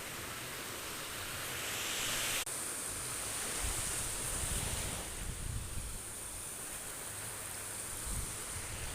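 Surf washing steadily, swelling for the first two seconds, with a brief dropout a little over two seconds in. Low gusts of wind buffet the microphone.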